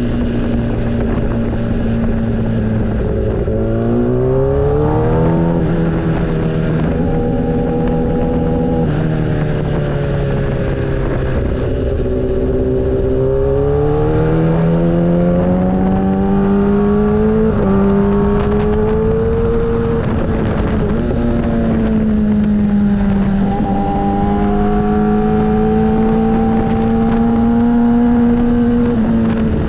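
Motorcycle engine running under way, its pitch climbing and then dropping back several times as it shifts through the gears, over a steady rushing noise.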